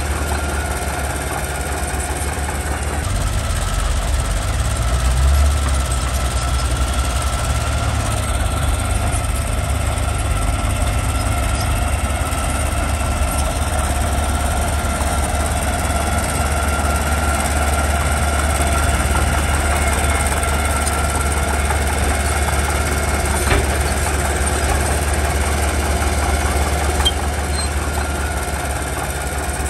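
Mitsubishi BD2G crawler bulldozer's diesel engine running steadily with a deep rumble that swells a few seconds in and then holds.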